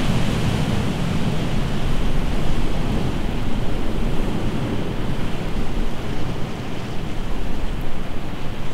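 Steady rush of wind buffeting the microphone, with a low fluttering rumble, mixed with the wash of sea surf.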